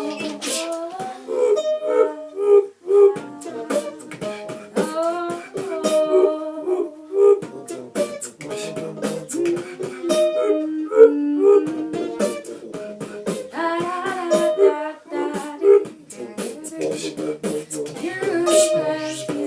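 Music: a beatboxed rhythm of sharp clicks and pops under a stepped instrumental melody.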